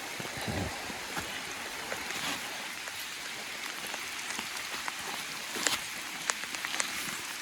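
Steady hissing background noise, with a few faint clicks and taps between about five and six and a half seconds in.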